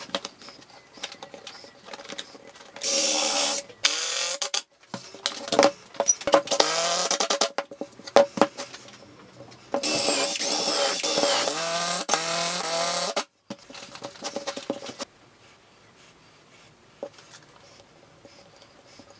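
Cordless drill driving screws into a wooden frame in several runs. The motor's pitch sags as each screw bites: first a short run, then a few quick bursts, then one longer run of about three seconds.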